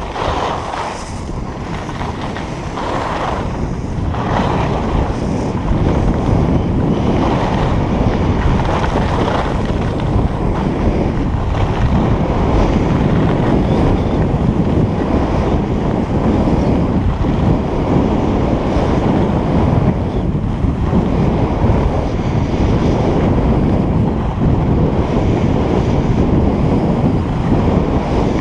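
Wind buffeting the microphone of a skier's camera during a fast downhill run, mixed with the rasp of skis on the groomed snow. A few short surges come early, and the rush grows louder about five seconds in, then holds steady.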